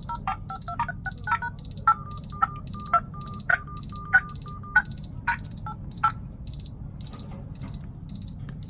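Smartphones ringing together: a short, high electronic beep repeats about twice a second alongside a lower ringtone melody of short notes with sharp clicks. About six seconds in the melody stops while the beeping goes on.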